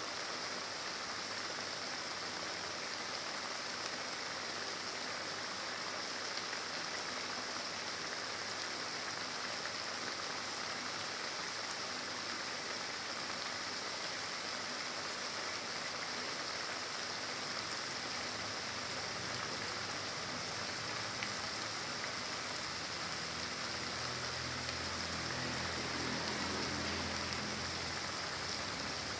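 Chili sambal frying in hot oil in a pan, with a steady sizzle throughout.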